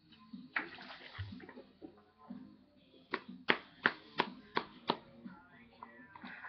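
A tin of Copenhagen Black snuff being packed: about six sharp taps in quick succession, roughly three a second, after some soft handling noises.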